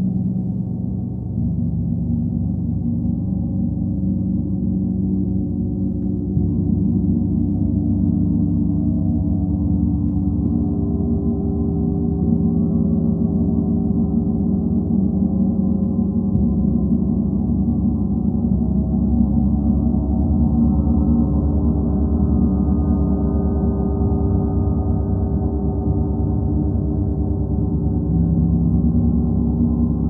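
Gongs ringing in a steady, dense wash of low, overlapping tones, the mix of tones shifting about six and again about sixteen seconds in.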